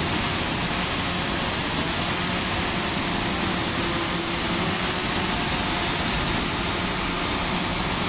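Steady rushing noise of a waterfall with a faint steady hum underneath.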